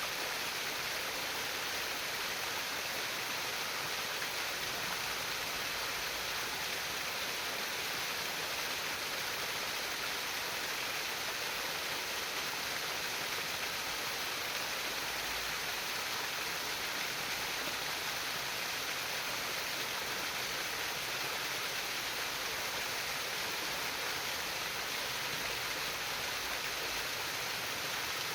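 Stream water flowing, a steady, unbroken rush.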